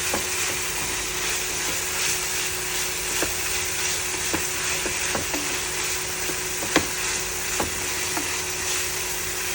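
Sliced chicken breast frying in hot oil in a pan: a steady sizzle, with a spatula now and then clicking and scraping against the pan, the loudest knock about two-thirds of the way in.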